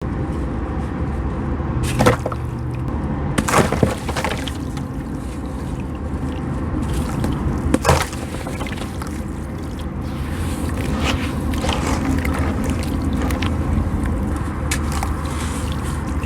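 Crisp dry sand being smashed and crumbled into a little water: sharp cracking snaps about two, three and a half, and eight seconds in, then many softer gritty crackles. A steady low hum runs underneath.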